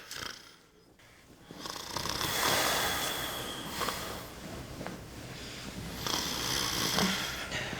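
A man snoring: two long snore breaths, the first starting about a second and a half in, the second about six seconds in.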